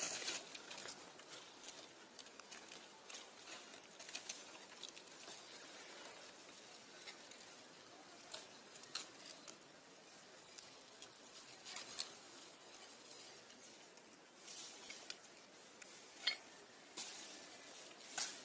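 Faint scattered rustles and soft clicks, a few louder ones spaced several seconds apart, as the macaque mother and her newborn infant shift on dry leaf litter.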